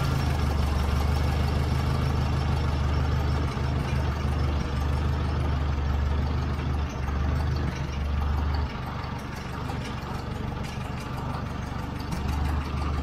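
Ford 600 tractor's four-cylinder gasoline engine running steadily, freshly started on a newly fitted aftermarket carburetor. Its level drops about nine seconds in and comes back up near the end.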